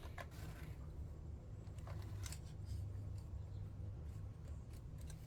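Faint, scattered clicks and small scrapes of a flat screwdriver working on a chainsaw while the carburetor is being removed, over a steady low hum.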